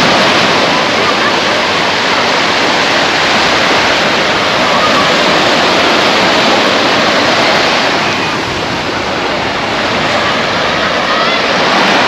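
Steady beach ambience: surf washing on the shore under a wash of distant voices, starting abruptly as the music cuts out.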